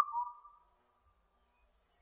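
Indian cuckoo calling its four-note whistled song: the last of three even notes, then the lower fourth note just after, fading out within about half a second.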